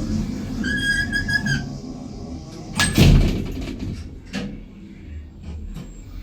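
Passenger lift in motion: a single electronic beep lasting about a second, then a loud clunk about three seconds in, followed by a few light clicks.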